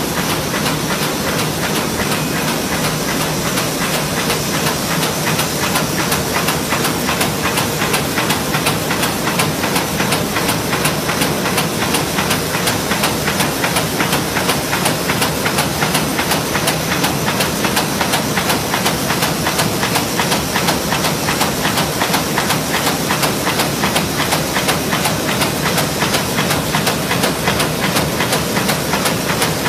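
High-speed sheet-fed UV varnish coating machine running at production speed: a steady, dense mechanical hiss with a rapid, regular clicking.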